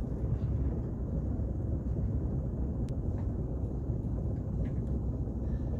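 A boat's engine running steadily, a low rumble, with a single sharp click about halfway through.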